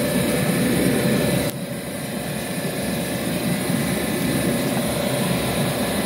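Steady mechanical drone of outdoor refrigeration condensing units running, their fans and compressors making a constant hum. It dips slightly about a second and a half in.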